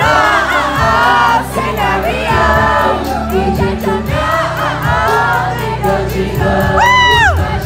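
K-pop dance track played loud over a PA with a steady beat, boy-band members singing into handheld microphones and the audience singing along.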